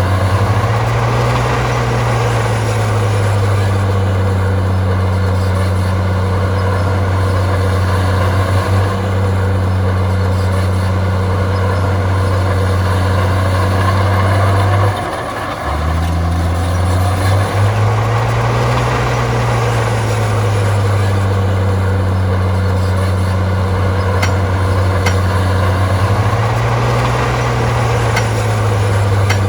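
Heavy diesel engine of an earthmoving machine running under load. Its note swells up and falls back three times, and there is a short dip about halfway through.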